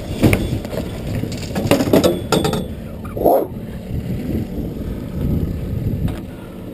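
Handling noise on a fishing boat: several knocks and rattles from the landing net and gear, and a short thud about three seconds in, over a steady low rumble of wind on the microphone.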